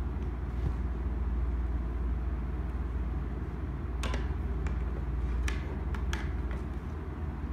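Steady low hum, with a handful of sharp clicks and taps between about four and six and a half seconds in.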